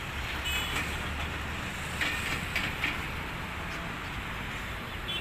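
Outdoor street noise: a steady low rumble of traffic, with a few sharp clacks about two to three seconds in.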